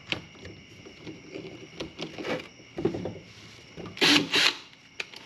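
Ryobi cordless drill and loose drill bits being handled at a wooden bench during a bit change: scattered light clicks and knocks, then two short, loud, hissy bursts a fraction of a second apart about four seconds in.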